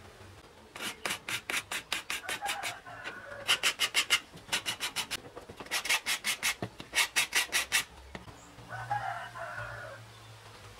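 Sandpaper on a sanding stick rubbed back and forth along the edge of a thin glued wood part: quick rasping strokes, about six a second, in several bursts with short pauses between.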